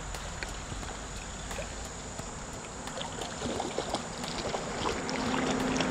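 Water splashing and swirling as a hooked catfish is reeled in close to the bank, louder from about three and a half seconds in, with small clicks from the baitcasting reel, over a steady background of wind and running water.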